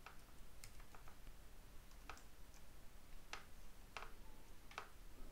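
Computer keyboard keystrokes, faint: about seven separate key presses at irregular intervals as a short command is typed.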